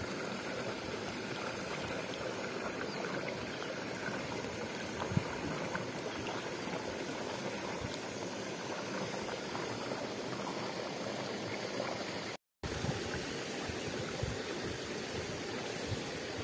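Steady rush of water running in a small rice-paddy irrigation channel, with one brief knock about five seconds in. The sound drops out for an instant a little past midway.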